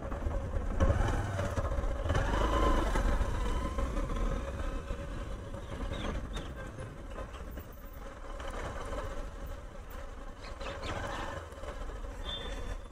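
Motorcycle engine running at low speed as the bike turns around and rolls along a rough lane, a steady hum over a low rumble of engine and road noise, a little louder in the first few seconds.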